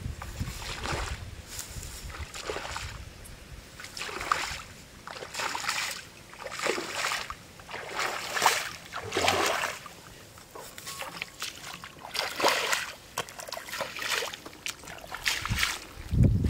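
Repeated irregular splashing and sloshing of water and wet mud, in short bursts about every one to two seconds.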